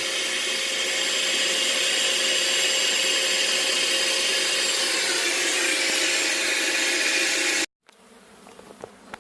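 Bee vacuum running steadily, a loud rushing hiss of air with a faint steady motor tone, as honey bees are sucked off the comb. It cuts off abruptly near the end, leaving the softer buzz of bees and a few light clicks.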